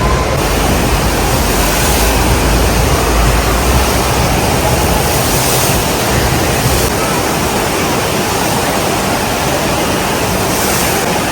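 Loud, steady rushing and splashing water, such as from water park slides and sprays.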